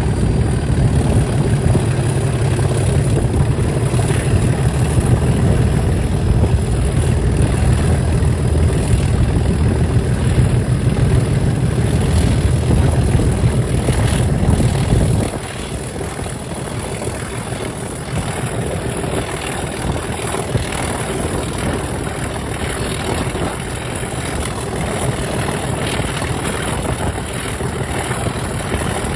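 Class 37 diesel locomotive's English Electric V12 engine working hard with a deep, heavy beat, heard from the open window of the coach behind it. About halfway through the power is shut off: the deep sound drops away suddenly and the engine runs on much more quietly.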